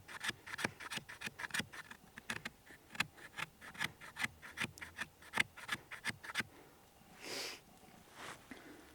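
The 90-degree spine of a knife scraping along fatwood, shaving off fine resinous tinder, in quick even strokes about three a second. The strokes stop about six seconds in, followed by two soft rustles.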